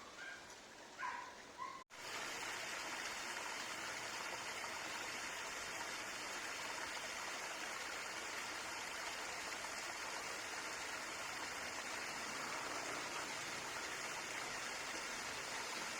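Water rushing steadily in a stream, an even unbroken sound. Just before it starts there are a few short animal calls, then an abrupt cut.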